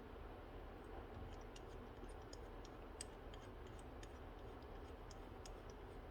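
Faint, irregular light clicks and ticks of small metal carburetor parts being handled as the float bowl and its bowl nut are fitted, with one slightly sharper click about halfway through, over low room tone.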